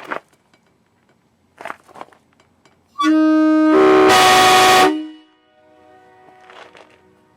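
Nathan Airchime K3HA three-chime train horn sounding one honk of about two seconds. It is a loud chord of several notes that distorts the recording at its peak, then rings away.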